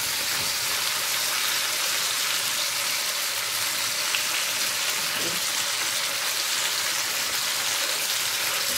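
Chicken pieces sizzling steadily as they fry in a pot on a stovetop.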